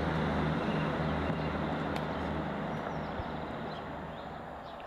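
A low, steady engine drone, fading away as it recedes, with faint bird chirps and a single sharp click about two seconds in.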